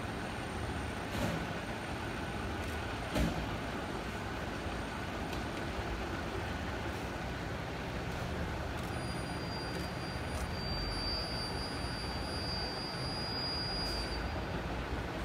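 Fire engines' diesel engines running steadily at idle in the station bays, with a couple of knocks in the first few seconds. A thin, steady high tone sounds for about five seconds in the second half.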